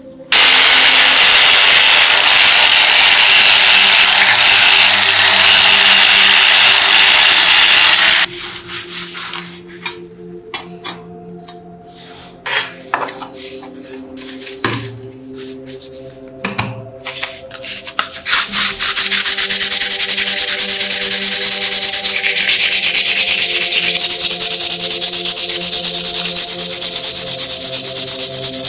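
A loud steady hiss for about eight seconds, then light clicks and knocks as plastic radio parts are handled. Then, from about two-thirds of the way in, sandpaper rubbed quickly back and forth over a plastic radio-cassette panel in rapid, even strokes.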